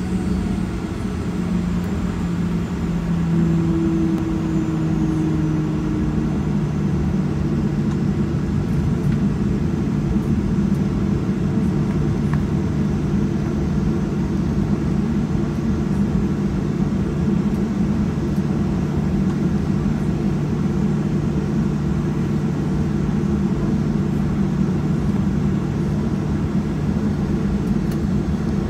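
Boeing 737-800's CFM56-7B engines heard from inside the cabin at taxi power: a steady low drone with a low hum, one hum dropping slightly in pitch about six seconds in, as the airliner taxis before takeoff.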